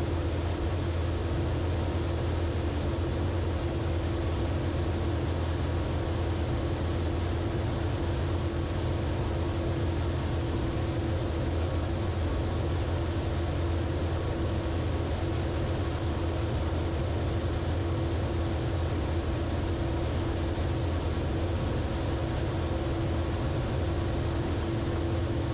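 Steady in-flight drone of a light aircraft's direct-drive, air-cooled four-cylinder engine and propeller at constant cruise power, heard from inside the cockpit. It has a deep hum with a steady higher tone riding on it.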